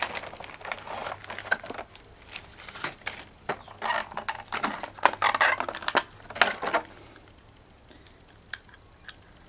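Clear plastic parts bags crinkling and rustling as they are handled, with irregular sharp crackles; it goes much quieter about seven seconds in.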